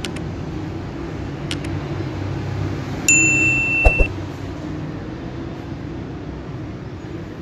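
Steady low hum of factory machinery. About three seconds in, an electronic beep sounds for about a second, with two sharp knocks as it ends.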